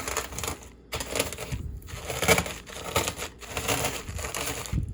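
Chips and dry instant ramen noodles crunching and crackling inside a plastic Ziploc bag as a can is rolled over it, in repeated strokes with short pauses between them.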